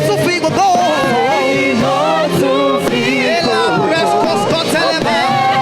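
A choir singing a praise song with live band accompaniment, several voices layered over sustained keyboard-like tones and a steady beat.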